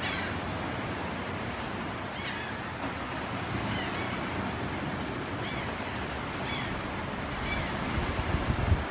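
Steady wash of surf and wind, with a bird giving several short, arched cries spread through it. Wind buffets the microphone in low thumps near the end.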